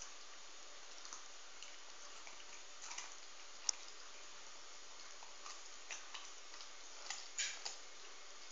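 Border Collie puppy gnawing a raw carrot: faint, irregular crunches and clicks of teeth on carrot, with one sharper click a little before halfway and a few louder crunches near the end.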